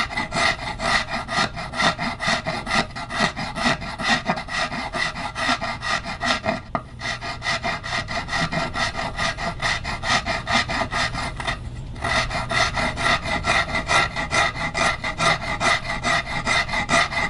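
A fine-cut curved half-round Japanese file rasping across a carved hard maple guitar top in quick, short pull strokes, about five a second, with brief breaks about seven and twelve seconds in. The filing is cleaning up the tool marks left by the planes on the arched carve.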